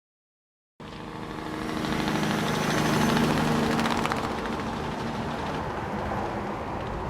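Combine harvester running, fading in about a second in and growing louder over the next two seconds before holding steady.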